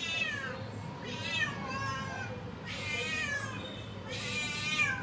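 An orange-and-white domestic cat meowing for food, four loud high meows about a second and a half apart, each falling in pitch.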